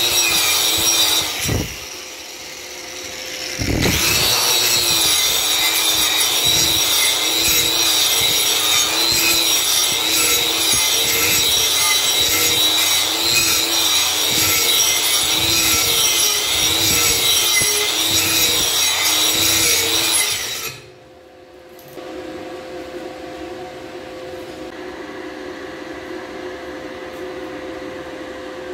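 Electric angle grinder working a welded steel plate, with a wavering high whine over the rasp of the disc on metal. It eases off briefly about two seconds in, then runs hard and steadily until it stops suddenly near twenty seconds in. A quieter steady hum follows.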